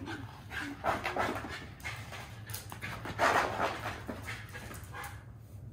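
A dog panting in short, uneven breaths, the loudest a little past three seconds in, over a steady low hum.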